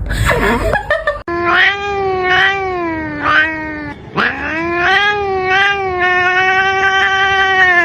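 A cat wailing in two long, drawn-out cries: the first wavers up and down in pitch for about three seconds, the second swoops up then holds a steady note. A short burst of rough, noisy sound comes just before the first cry.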